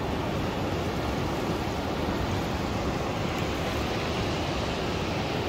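Steady rushing of shallow surf washing over the sand, with wind noise on the microphone.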